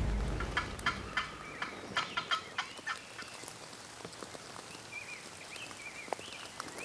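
Wild turkey gobbling: rapid rattling calls in the first three seconds, after a brief low rumble at the very start. Later, fainter, short chirping bird calls.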